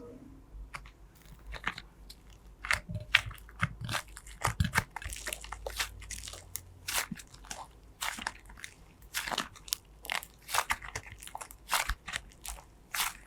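Slime being squeezed and kneaded by hand, crackling and popping in quick, irregular clicks.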